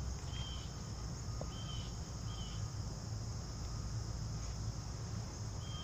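Outdoor insect ambience: a steady high-pitched trill of crickets, with a few short chirps and a low rumble underneath.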